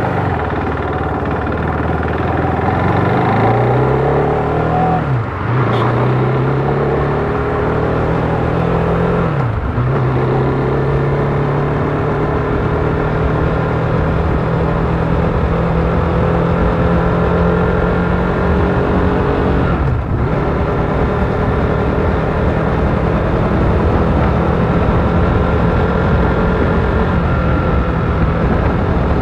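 KTM RC 390's single-cylinder engine and exhaust under way, pulling away and accelerating through the gears. The pitch rises and then drops at three upshifts, about five, nine and twenty seconds in, before settling into a steady cruise.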